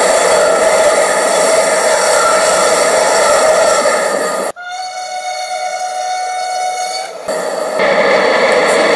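High-speed ICE train rushing past at speed, played back through a laptop speaker. About four and a half seconds in, the rush cuts off abruptly and a steady pitched tone holds for about three seconds, then the rushing train noise returns near the end.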